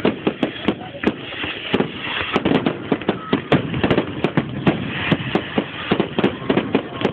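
Fireworks display going off: a dense, irregular run of sharp bangs and pops, several a second, over continuous crackling.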